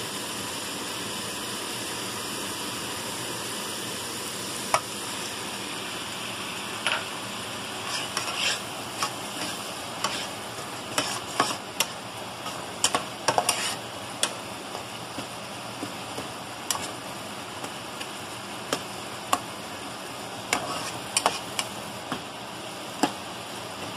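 Onion and spice masala with a little water in it sizzling in a non-stick frying pan, under a steady hiss. A metal spatula scrapes and taps against the pan as it is stirred, in irregular clicks from about seven seconds in.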